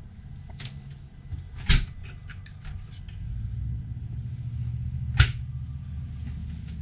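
Gas/electric RV refrigerator doors being handled: a few light clicks and two sharp knocks, one about two seconds in and one about five seconds in, as the fridge and freezer doors are opened and shut.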